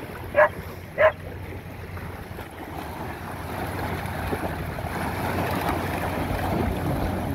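A dog barks twice in quick succession, then a building wash of splashing as several dogs run through shallow sea water, with waves lapping at the shore.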